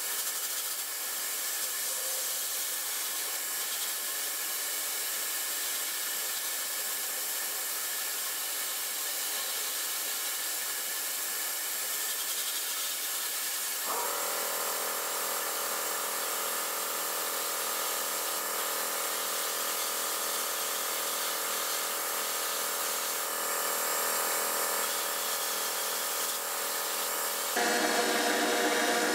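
Sandblast cabinet nozzle giving a steady hiss of air and abrasive as it strips blue paint and rust off a pressed-steel toy truck panel. About halfway in, a steady hum with several tones joins it. Near the end it gives way to a louder hiss from an Eastwood HotCoat powder coating gun spraying powder.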